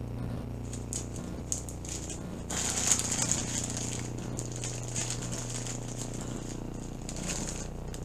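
Clear plastic bag crinkling and rustling as hands rummage through the small plastic packets of diamond-painting drills inside it, with scattered small clicks. The crinkling gets denser and louder about two and a half seconds in, then settles back.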